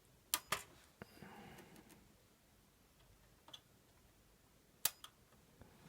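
Spot welder firing on a toaster's heating element: two sharp snaps shortly after the start and another pair near the end, with lighter clicks and handling noise between. The setting is one the repairer judges too strong.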